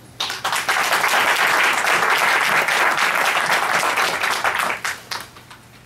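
Audience applause: a crowd clapping that starts abruptly, holds steady for about four seconds, then tapers off.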